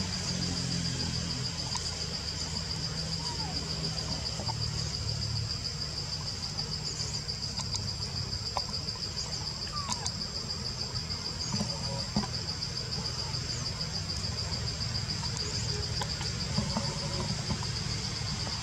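Steady high-pitched insect chorus, a fast even trill that holds unchanged throughout, with a few faint short chirps over it.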